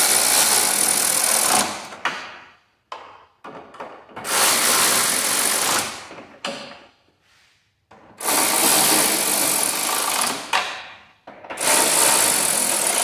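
Cordless electric ratchet running 11 mm nuts down onto the grille studs, in four runs of about two seconds each, with short clicks between the runs.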